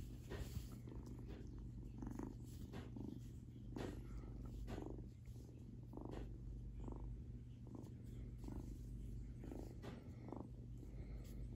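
A ginger kitten about three weeks old purring: a low, steady rumble with soft, fairly regular pulses.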